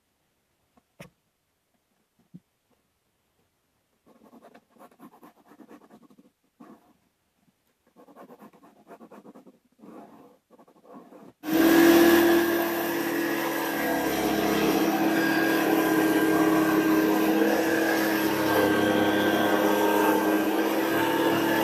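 Faint, intermittent scratching as a line is traced on plywood around a bowl. About halfway through, a homemade scroll saw driven by an old jigsaw motor starts abruptly and runs loudly and steadily with a constant hum, its blade cutting plywood.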